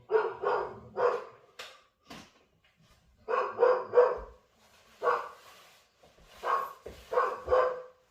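A dog barking repeatedly: about ten sharp barks, mostly in groups of three with short pauses between.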